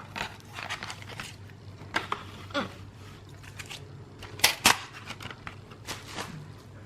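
CD single packaging and its paper inserts being handled and opened: irregular crinkles and sharp clicks, with two louder clicks close together about four and a half seconds in.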